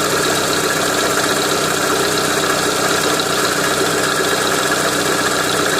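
Renault Mégane II car engine running steadily, with a knock coming from the engine.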